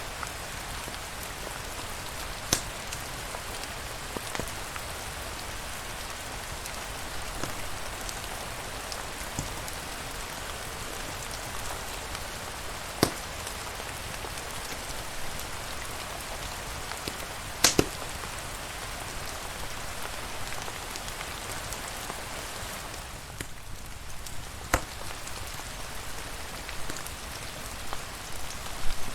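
Steady rain falling, an even hiss of drops, with a few sharp single pops standing out above it.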